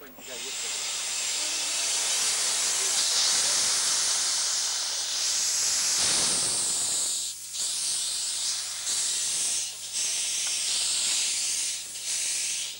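Small 15-inch gauge steam locomotive with steam hissing loudly from its open cylinder drain cocks as it starts to move off. The hiss starts abruptly and drops out briefly a few times in the second half.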